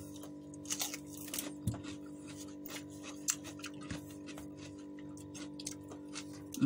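Chewing and crunching of raw vegetables, with scattered small crackles and clicks, over a steady low hum.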